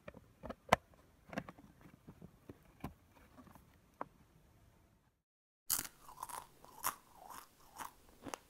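A plastic food storage container's lid being pressed down and snapped shut by hand, with irregular sharp plastic clicks and crackles. After a brief silence, a louder run of sharp clicks and knocks follows near the end.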